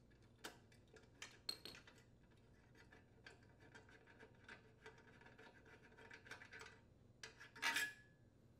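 Faint, scattered metal clicks and scrapes as a 7/16-inch socket unthreads the muffler flange bolt on a Briggs & Stratton small engine. A louder metallic clink rings briefly near the end.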